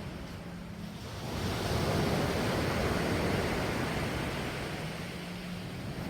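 Waves breaking on a sandy beach: a wave rushes in about a second in, then washes out and fades near the end.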